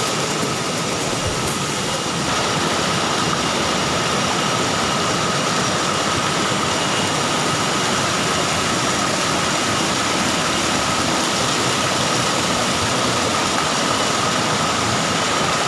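Waterfall roaring steadily, an even rushing of falling water.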